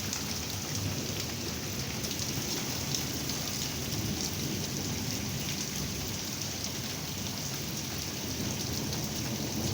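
Heavy rain pouring steadily in a strong thunderstorm, an even hiss of falling water with a low rumble underneath.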